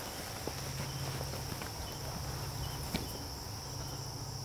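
Field insects trilling in a steady high-pitched chorus, with a few faint clicks and one sharper tick about three seconds in.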